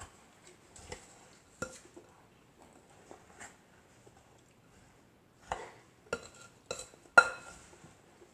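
A spoon stirring a thick oat mixture in a pot, scraping and knocking against the bottom and sides in scattered clicks. The loudest knock comes about seven seconds in.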